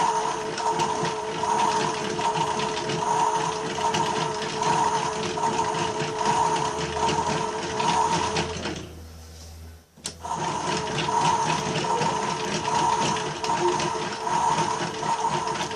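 Washmatic toy washing machine running its rinse cycle: its small motor turns the drum with a steady hum that pulses a little faster than once a second. It stops for about a second near the middle and starts again with a click.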